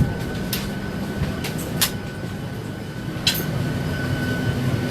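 Airliner cabin noise: a steady rumble of engines and air with a thin high tone, broken by a few sharp clicks and knocks.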